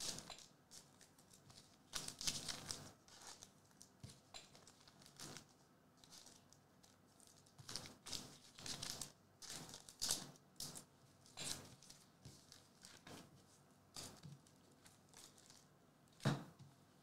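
Faint rustling and sliding of foil trading cards being handled and set down on a mat, in short scattered swishes, the loudest one near the end.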